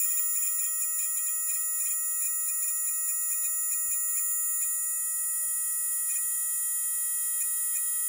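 AUTOOL spark plug tester firing sparks across the plug gaps at its maximum spark rate, giving a steady high-pitched electrical buzz with overtones and faint crackling ticks.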